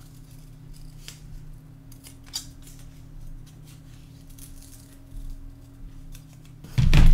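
Scissors snipping through paper in a series of separate short cuts, over a steady low hum. A loud thump comes near the end.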